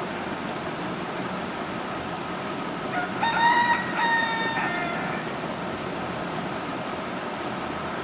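A rooster crows once, about three seconds in: a call of nearly two seconds that rises, holds, breaks briefly and falls away at the end, over a steady background hiss.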